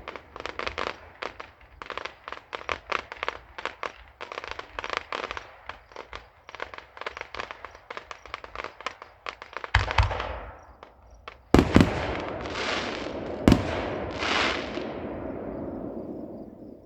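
Fireworks display: about ten seconds of rapid crackling pops, then several loud bangs of bursting shells, each followed by a hissing crackle that dies away near the end.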